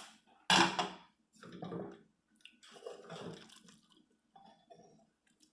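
Utensil stirring through cooked chicken gizzards and hearts in their liquid in a pressure cooker pot: a sudden loud stroke about half a second in, then several shorter, quieter stirs.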